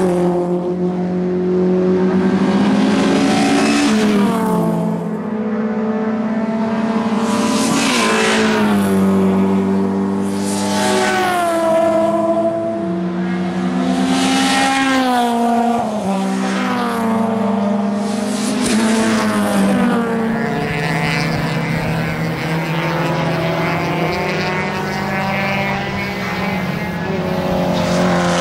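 Historic racing cars at speed on a circuit, their engines revving hard with repeated rises and falls in pitch as one car after another goes past. In the last third the engine note becomes steadier and busier.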